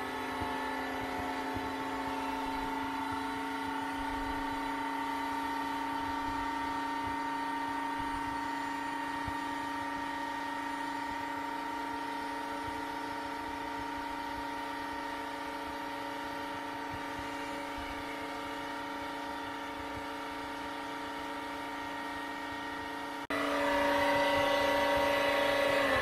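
iLife EASINE W100 wet-and-dry cordless vacuum running its self-cleaning cycle in its docking station: a steady motor drone with several held tones. About 23 seconds in it abruptly gets louder.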